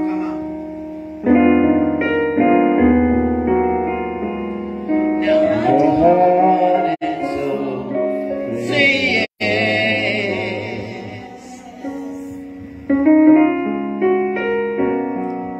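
A gospel song: women's voices singing over held keyboard chords that change every second or two. The singing is strongest in the middle, and the sound cuts out for an instant twice.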